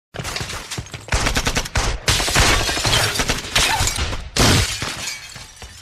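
Bursts of rapid automatic gunfire, shot after shot in quick succession, broken by brief pauses between the bursts.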